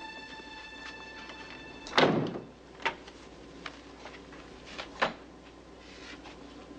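A cabin door shutting with one solid thud about two seconds in, followed by a few light clicks and knocks.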